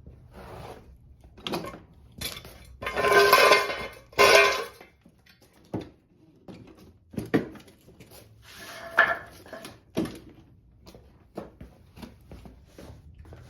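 Clanking and knocking of a Honda HRR2169VYA lawnmower's body and parts as it is tipped over and handled, with two loud ringing clanks about three and four seconds in and lighter knocks throughout.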